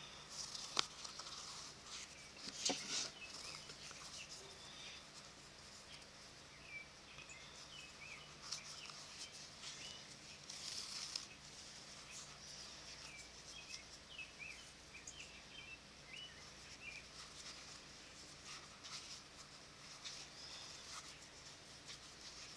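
Faint rustling and soft scraping of a leather lace being pulled through the punched holes of a leather pouch, with a couple of sharper handling clicks in the first few seconds. Small birds chirp in the background through the middle.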